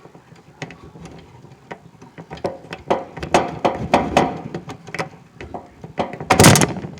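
Wire connectors being wiggled and pulled off the terminals of a furnace control board: a run of small plastic clicks and rattles, with one louder scraping burst near the end.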